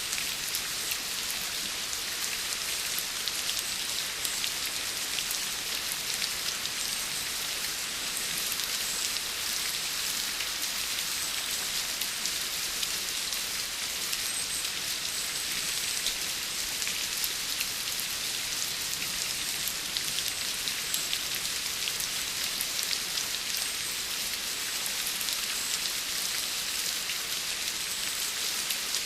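Steady rainfall, a dense even hiss of many fine raindrops pattering on a surface.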